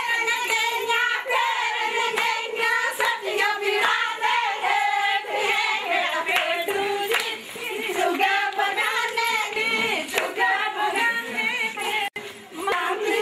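A group of women singing a Pahari folk song together for the Jhamakda dance, with hand clapping through the singing. The sound drops out for a moment near the end.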